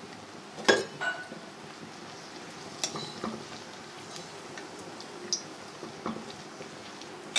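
Bread slices frying in hot ghee in a pan, a soft steady sizzle, broken by a few sharp clinks of a utensil against the pan, the loudest about a second in.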